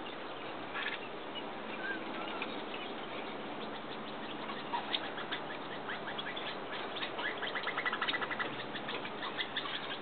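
Eurasian nuthatches tapping and hammering at tree bark with their bills: irregular sharp taps, coming thickest and fastest a little past halfway.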